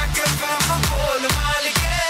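Dance music with a heavy bass beat, playing loud.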